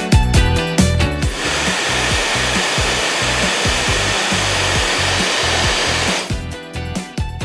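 Uniorange H9 Pro high-speed hair dryer blowing, a steady hiss of air that starts about a second in and cuts off a little before the end, over background music with a steady beat.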